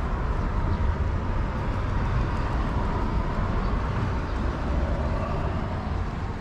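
Steady low rumble of motor-vehicle noise, with a faint steady hum over it.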